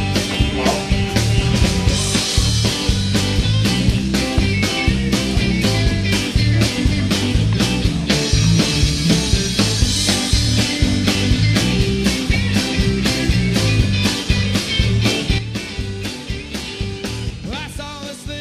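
Rock song on the soundtrack with a steady beat, fading out over the last few seconds.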